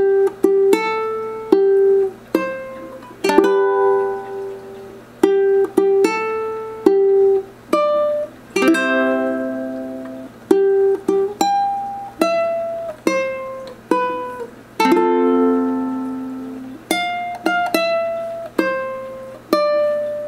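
Solo ukulele picking a slow melody. Single plucked notes ring and fade, with fuller strummed chords now and then.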